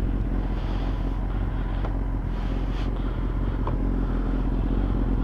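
Kawasaki ZX-10R's inline-four engine running steadily at low revs once warmed up.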